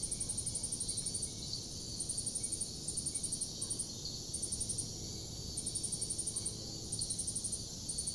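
Insect chirping: high-pitched trains of rapid, even pulses, each lasting about half a second to a second, repeated with short irregular gaps.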